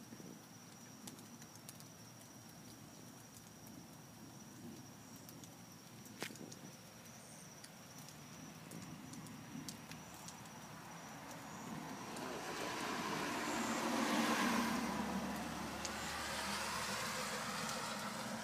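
A car passing on a wet road, its tyre hiss swelling about two-thirds of the way in, loudest a couple of seconds later, then easing off only slightly. Before it, a faint background with scattered light clicks.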